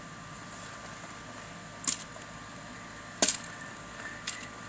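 Two sharp clicks about a second and a half apart, with a fainter one near the end, over a steady faint background hum.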